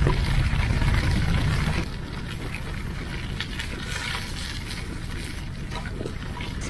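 Wind rumbling on the microphone while riding a bicycle, loudest for about the first two seconds, then settling into a steadier hiss with scattered light clicks and rattles.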